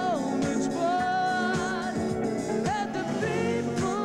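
A live pop band playing, with a male lead singer holding long notes that slide in pitch over the band and drums.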